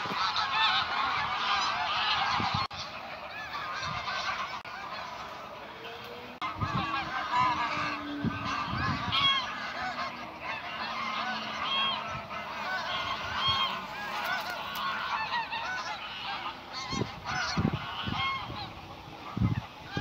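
A large mixed flock of gulls and other waterbirds calling in a dense, continuous chorus of many overlapping short cries.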